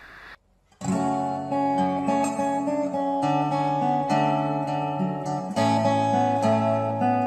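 Acoustic guitar being played, chords picked with the notes ringing on and changing at a steady pace. It starts a little under a second in, after a brief moment of silence.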